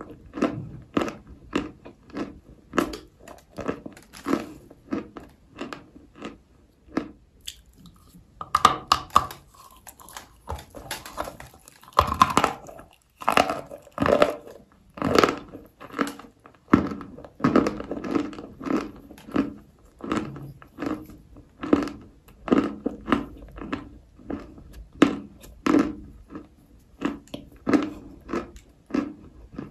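A mouthful of Turkestan clay being chewed: steady crunching chews, about two a second.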